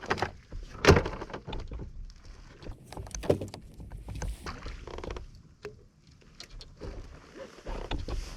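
Scattered knocks and clunks on a plastic fishing kayak while a just-landed freshwater drum is handled, with louder thumps about a second in and again about three seconds in.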